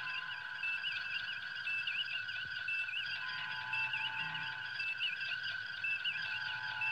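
A looping electronic sound effect: several steady high tones held under short warbling chirps that repeat over and over.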